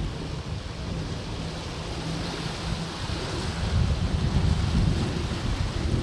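Sea waves washing in over a rocky shore, a continuous rushing wash that swells louder about halfway through as a wave surges across the rock ledges, with a low rumble of wind on the microphone.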